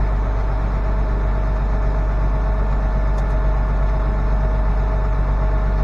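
International Harvester 5288 tractor's six-cylinder diesel engine idling steadily while the tractor sits on the weigh scale.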